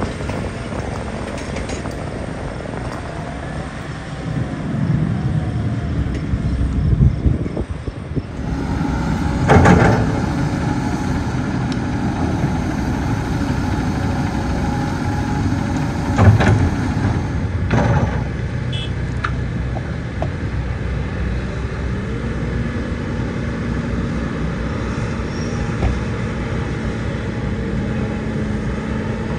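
Heavy diesel machinery running steadily, with three loud knocks: one about ten seconds in and two more close together between sixteen and eighteen seconds.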